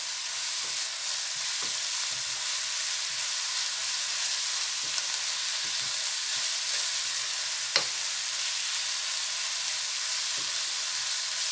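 Chopped vegetables frying with a steady sizzle in a nonstick pan as a wooden spatula stirs them, with light scrapes and knocks of the spatula on the pan. There is one sharper click about eight seconds in.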